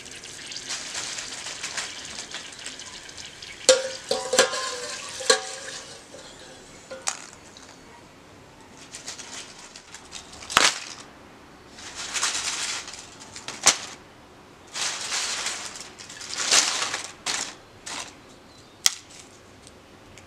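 Potato slices sizzling in hot frying oil, then a few sharp metal clinks of a wire skimmer against the stainless pot. Later come bursts of rustling and crackling, as paper towel is handled and crisp fried chips are dropped into a lined basket.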